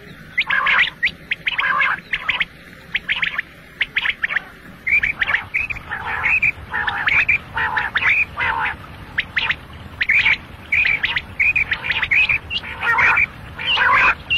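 Quail calling over and over: short, sharp notes that come in quick runs of two or three, repeated all the time.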